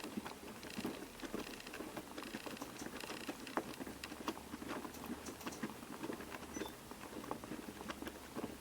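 Piko WS5522 washing machine in its rinse cycle: water and laundry sloshing and splashing in the turning drum, a dense, irregular patter. A faint low hum comes in about four seconds in.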